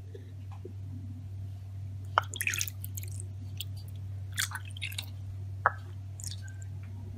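A wire whisk and bowls being handled in thick besan (gram flour) batter: a few scattered soft wet squelches and light clicks over a steady low hum, with water poured into the batter near the end.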